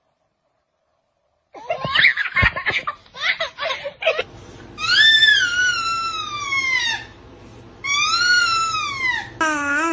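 A baby giggling in short bursts after a second and a half of silence, then two long, very high-pitched squeals that fall in pitch, and a shorter wavering vocal sound near the end.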